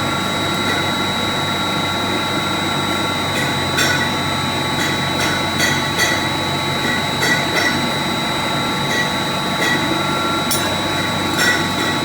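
Industrial pump's electric motor running with a steady high whine, with irregular sharp clicks and knocks from a few seconds in.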